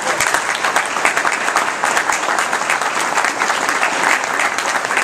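Audience applauding: a loud, steady round of many hands clapping.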